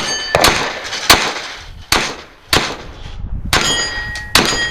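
.22 rimfire gunshots fired in a string about every half second to second, with the steel targets ringing out as they are hit.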